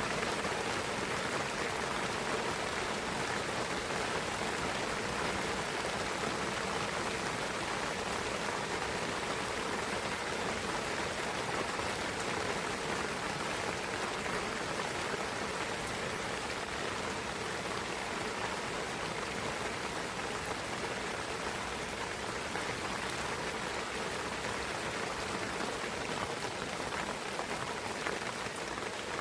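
Steady rain falling in a pine forest, drops pattering on leaves and surfaces in an even hiss.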